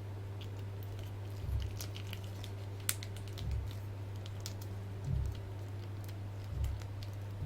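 Handling of a plastic action figure while a peg is pushed into its peg hole: faint plastic clicks and taps, with four dull bumps spread about a second and a half apart, over a steady low hum.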